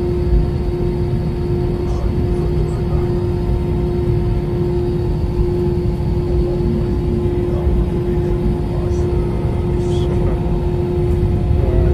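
Airliner cabin noise during taxiing: a steady drone from the jet engines at low power, over a low rumble of the wheels rolling on the taxiway.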